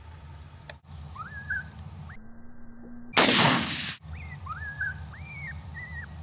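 A single rifle shot about three seconds in, a sudden loud report that dies away over most of a second, fired at a coyote. Short rising whistles come every second or so before and after it.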